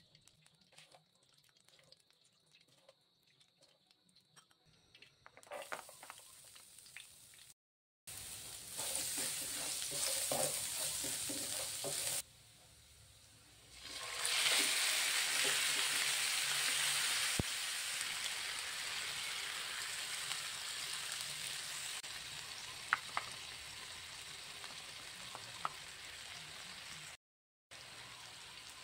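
Chicken pieces and chopped garlic frying in hot oil in a non-stick pan, sizzling. The sizzle jumps up loud about halfway through as the chicken goes into the pan, then slowly dies down, with a few clicks of a plastic spoon against the pan. Before that there is only quiet scraping and ticking as oil is spooned out of the pan.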